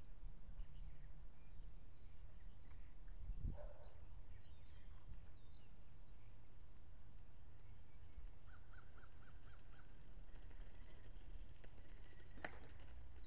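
Outdoor birds calling over a steady low background rumble: a string of short, quick, descending chirps in the first few seconds, then a rapid run of about six short notes just before the middle. A couple of sharp clicks come near the end.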